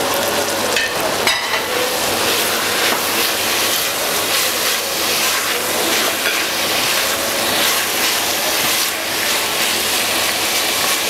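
Onions, garlic and parsley sizzling steadily as they fry in a stainless steel pot, with a wooden spoon stirring through them. A couple of sharp clicks come about a second in.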